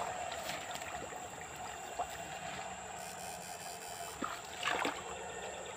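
Shallow ditch water trickling, with a short splash about four and a half seconds in as the poles of an electrofishing rod are dipped into the water.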